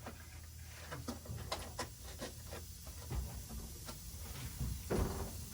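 Scattered light clicks, knocks and rubbing as a pickup's steel bumper is tugged and worked loose from its mounts, with a louder thump about five seconds in.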